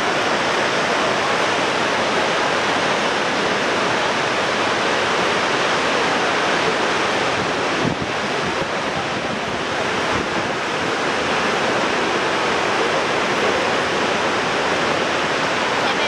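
Steady rushing of Niagara Falls, a continuous even roar of falling and churning water, with some wind on the microphone.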